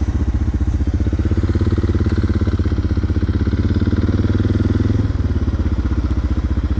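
Single-cylinder dual-sport motorcycle engine running with an even, rapid beat, its note changing about five seconds in.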